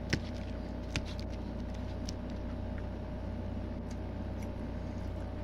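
Steady low background hum, with two brief clicks about a second apart at the start.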